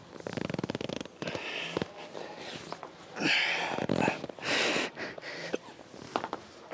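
A man straining and breathing hard through the last reps of a heavy one-arm dumbbell row: a buzzing, strained grunt in the first second, then loud, forceful exhales about three seconds in, repeated over the next two seconds.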